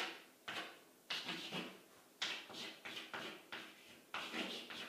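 Chalk writing on a blackboard: a string of short taps and scrapes, about two a second.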